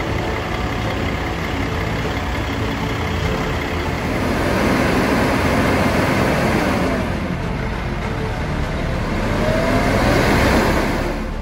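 Diesel dump truck engine running, getting louder in the second half with its pitch rising and falling as it revs.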